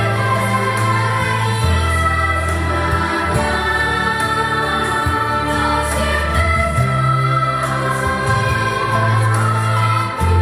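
Orchestral film music with strings and choir, held bass notes changing every second or two, played back through an Energy Sistem Tower 3 speaker tower as a sound test.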